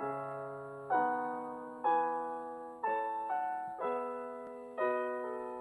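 Slow, gentle piano music: sustained chords struck roughly once a second, each ringing and fading before the next.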